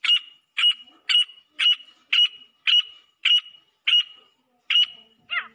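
Female grey francolin calling: a run of about ten short, sharp, high notes, roughly two a second, followed near the end by one falling note.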